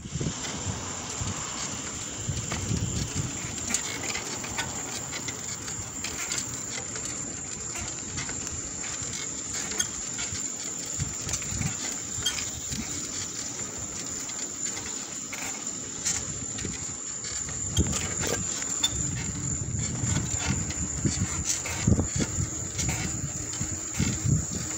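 A steady high-pitched chorus of insects such as crickets, over an uneven low rumble and scattered clicks from the camera moving along the pavement.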